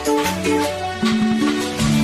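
Instrumental introduction of a Nepali song's karaoke backing track: sustained melody notes over a bass line with light, regular percussion, and no singing.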